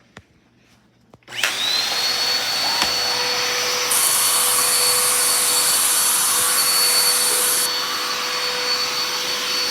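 Vacuum cleaner switched on about a second in, its motor spinning up to a steady high whine over a loud rush of air; the hiss of the airflow turns brighter for a few seconds and then eases back.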